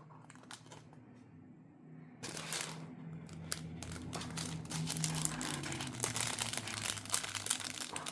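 Small plastic bags of diamond painting drills crinkling and rustling as they are handled, much busier from about two seconds in.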